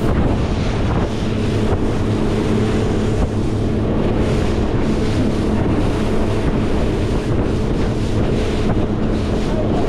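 Outboard motor of a small rigid inflatable boat running steadily at planing speed, a low steady engine tone under the rush of water and spray off the hull. Heavy wind buffets the microphone.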